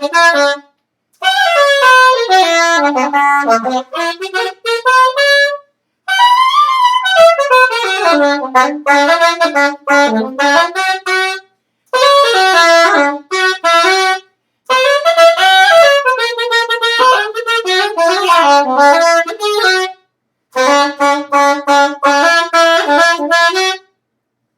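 Solo saxophone playing an unaccompanied melodic line in six phrases separated by short breaths, with runs that climb and fall.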